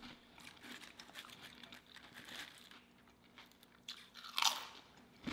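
Close-miked chewing and crunching of potato chips, many small crisp crunches. A louder, brief swishing sound comes about four and a half seconds in.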